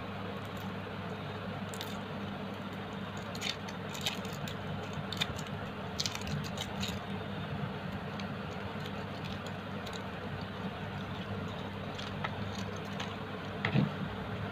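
Foil wrapper being peeled off a block of processed cheese, crinkling in short bursts, over a steady low hum. A single louder knock comes near the end as the metal grater is picked up.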